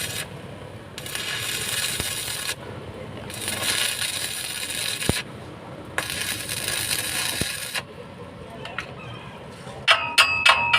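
Workshop noise: on-off hissing in stretches of a second or two with short gaps, then near the end a fast run of ringing metal strikes, about six a second, like a metal part being tapped or hammered.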